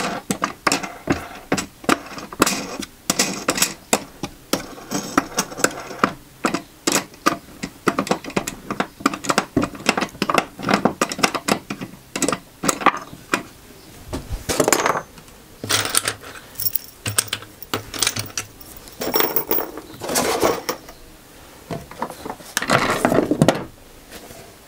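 Irregular run of quick clicks and knocks from tools and wooden parts being handled at a woodworking bench, then a few longer, noisier sounds from about halfway through.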